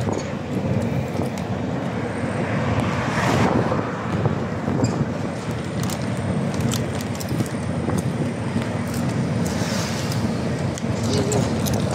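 Steady road and engine noise of a small pickup truck, heard from its open cargo bed, with wind on the microphone. Scattered clicks and rattles run through it.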